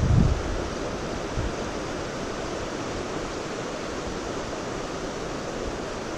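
Steady rushing outdoor noise, with a gust of wind buffeting the microphone right at the start.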